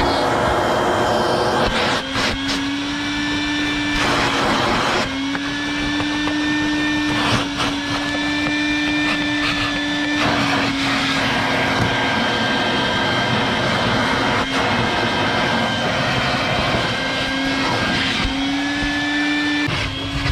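Vacuum cleaner running with a steady motor whine as its hose nozzle sucks along car floor carpet. The whine dips and shifts briefly a few times, with a few short rough bursts.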